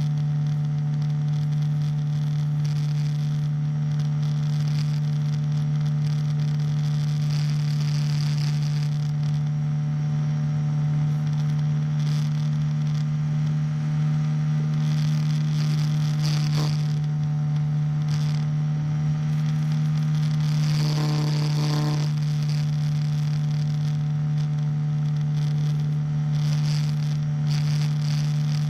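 A small engine powering a hang glider drones steadily at one pitch under power while climbing, with wind hissing and buffeting over the microphone in gusts.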